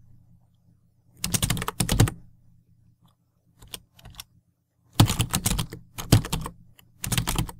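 Fast typing on a computer keyboard, rapid keystrokes in several quick runs with short pauses between.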